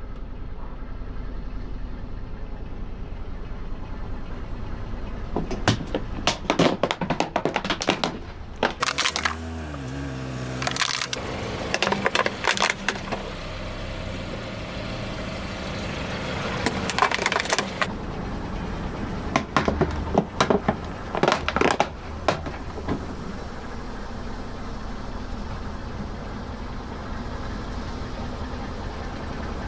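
Crunchy objects cracking and crunching as a car tyre rolls over them, in several bursts of rapid cracks: about a fifth of the way in, again through the middle, and once more about two-thirds of the way in. A steady low rumble runs underneath.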